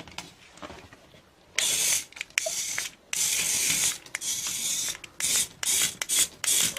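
A run of loud, hissing bursts, each up to about a second long with short gaps between, starting about a second and a half in.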